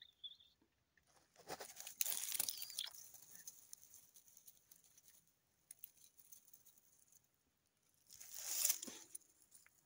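Dry leaves, grass and twigs crunching and rustling underfoot, in two loud spells: one from about a second in and one near the end, with faint crackles between them. A brief high chirp sounds at the very start.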